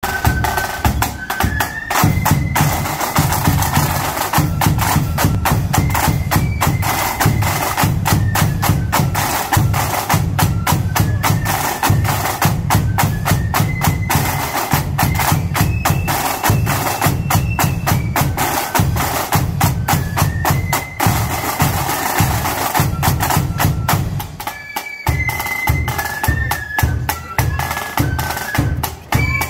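Marching flute band playing: a shrill flute melody in unison over rapid, crisp side-drum rolls and beats with a deeper drum pulse underneath, the drumming thinning briefly about 25 seconds in.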